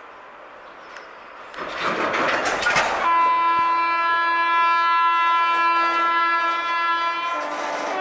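Electric locomotive of an approaching Indian Railways express train sounding one long, steady multi-tone horn blast starting about three seconds in, dropping slightly in pitch near the end. A loud rushing noise of the train comes just before the horn.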